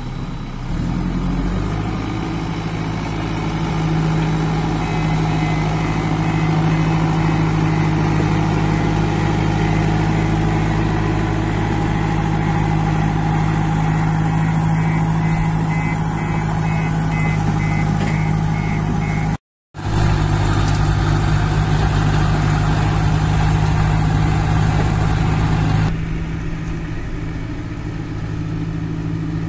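Diesel engine of a JCB 2DX backhoe loader running steadily, its revs rising about a second in and again a few seconds later, then easing back near the end. The sound cuts out for an instant about two-thirds of the way through.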